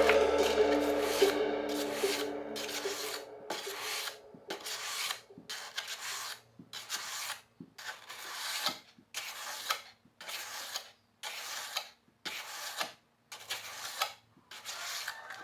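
A knife blade drawn again and again across a sharpener, a run of even scraping strokes about two a second, each one gritty and rasping. Background music fades out in the first few seconds.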